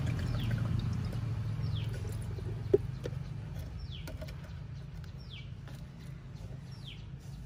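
A bird calling with short downward-sliding chirps, about five of them a second or two apart, over a low steady rumble that slowly fades. There is one sharp click a little under three seconds in.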